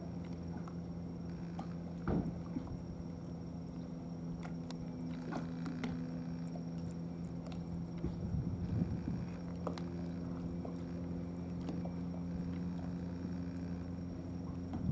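A cat eating wet food from a plastic tray, with small wet chewing and licking clicks, over a steady low engine hum. There is a louder knock about two seconds in.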